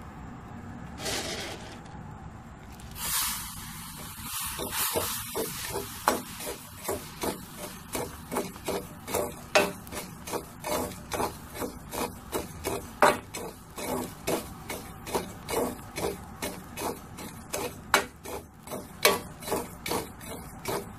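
A perforated metal ladle scraping and stirring through hot salt in a kadai as chickpeas dry-roast in it: a rhythmic rasp, about two strokes a second, setting in about three seconds in.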